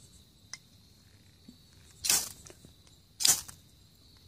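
A ferrocerium fire steel scraped hard against a knife twice, two short rasping strokes about a second apart, after a small click. It is being struck the way one strikes sparks to start a fire.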